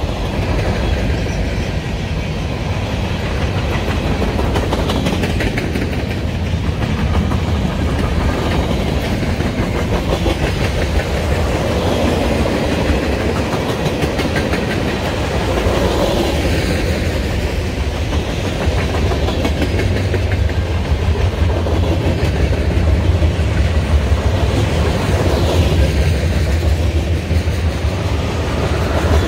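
Freight cars rolling past close by: a steady rumble of steel wheels on rail with a continuous clickety-clack over the rail joints as coil cars, a tank car and covered hoppers go by.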